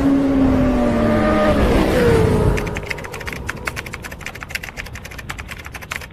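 Intro sound effects: a motorcycle engine revving down, its pitch falling over about two seconds, then a rapid run of typewriter-style clicks from about two and a half seconds on.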